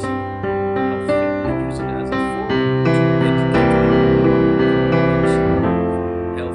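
Slow background piano music, held chords changing every second or so.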